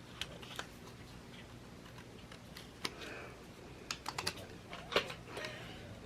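Irregular light clicks and taps at a desk, several in quick succession about four seconds in and a sharper one about five seconds in.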